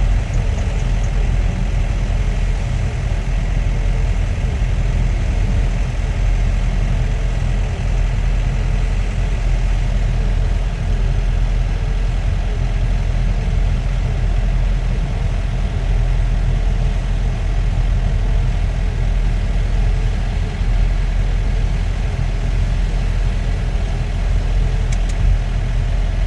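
Car running with a steady low engine and road rumble.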